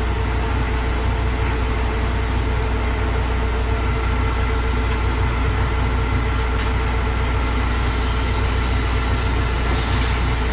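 Ceramic fiber mat forming machine running: a steady mechanical drone with a strong low hum and a constant mid-pitched tone over it. A faint click comes about two-thirds of the way through.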